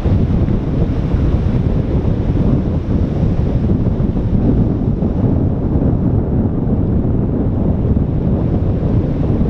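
Loud wind buffeting the microphone in a steady low rumble, with ocean surf washing beneath it.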